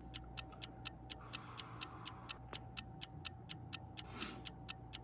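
Quick, even ticking of a clock or timer, about four ticks a second.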